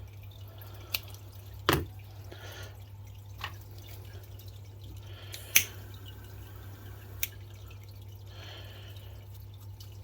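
Five or so sharp, irregularly spaced clicks as paracord is cut and its end melted, over a steady low hum.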